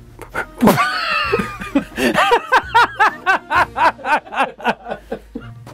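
A man laughing hard: a long whooping cry about half a second in, then a quick run of 'ha's, about four or five a second, that trails off near the end.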